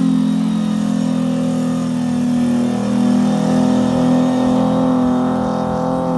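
Nissan V6 bakkie engine held at high revs while spinning, its exhaust note steady in pitch with slight wavering.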